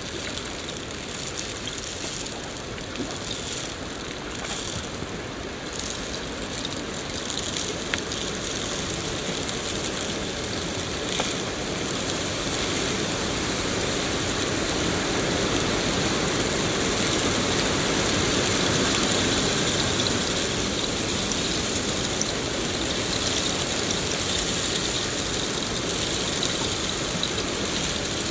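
Steady rain falling, a continuous even hiss with faint scattered patter, growing a little louder about halfway through.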